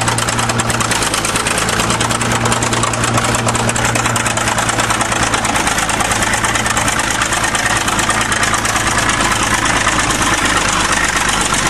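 Diesel engine of a 1953 International TD20 crawler bulldozer running steadily as it drives over a car, an even, heavy mechanical drone.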